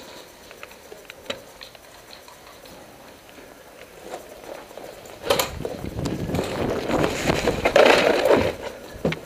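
Scattered light clicks, then a loud stretch of crackling, rustling and scraping for about three seconds as the body-worn camera and gear rub and knock against a wooden wall while the player shifts position.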